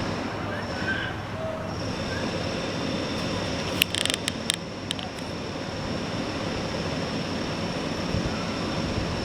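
Steady rushing road and wind noise from a moving vehicle, with a few sharp clicks or knocks about four seconds in.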